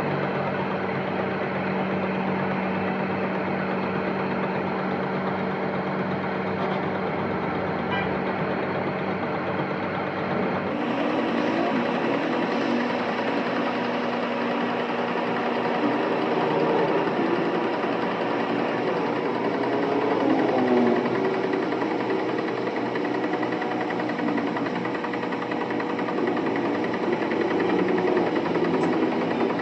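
Machinery running steadily with a constant hum. About eleven seconds in it changes character, with wavering tones coming in over the hum.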